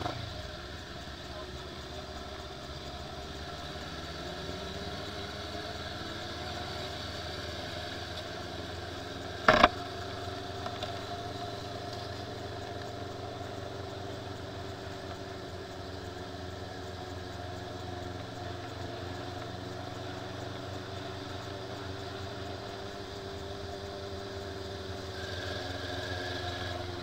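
Motorcycle engine running steadily at low road speed, its pitch drifting gently up and down, over a low rumble. A single sharp knock cuts in about ten seconds in.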